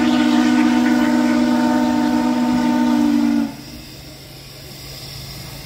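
Steam locomotive's whistle blowing a long steady blast, a chord of several notes, which cuts off about three and a half seconds in.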